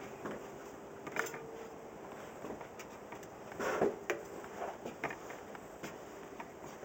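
Scattered light clicks and handling noises from a tubeless sealant injector being handled and fitted, with one louder scrape a little after halfway.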